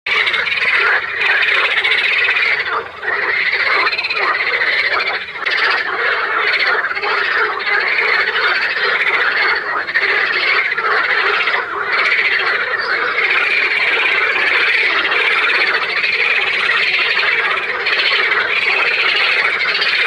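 A chorus of frogs calling at once: a dense, continuous croaking made of rapid pulses, with only brief dips.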